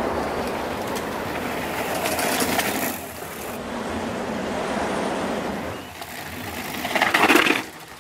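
Mountain bike descending a dirt trail: tyres rolling over rough ground with the bike rattling, and a louder rush of noise near the end.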